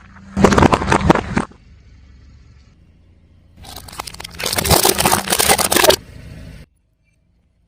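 Crunchy objects crushed under a car tyre: a loud crackling crunch lasting about a second, then a longer crunching lasting about two and a half seconds, over a low steady car hum. The sound cuts off suddenly near the end.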